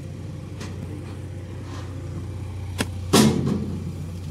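A vehicle engine idling steadily, with sharp knocks about three seconds in, the second one the loudest and followed by a short clatter.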